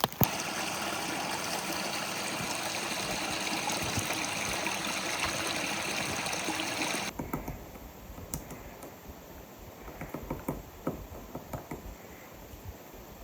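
A mountain stream running with a steady rush of water. It cuts off abruptly about seven seconds in, leaving a quieter background with scattered light clicks and crunches like footsteps on a forest trail.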